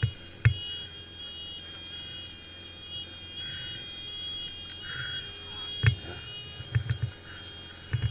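A steady high-pitched electronic tone, like an alarm or buzzer, stepping slightly in pitch, with a few low thumps and clicks about half a second in and again around six to seven seconds in.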